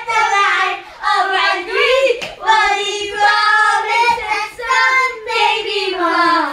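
A child singing unaccompanied, one continuous melodic line that slides down in pitch near the end, with one sharp click about two seconds in.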